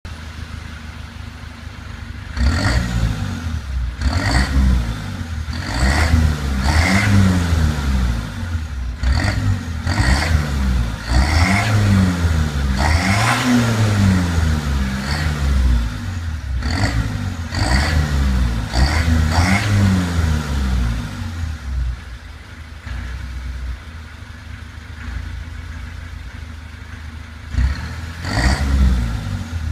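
Mini One D's 1.4-litre diesel engine heard at the exhaust tailpipes, blipped repeatedly from idle in about a dozen short revs that rise and fall. It then settles back to a steady idle, with one more rev near the end.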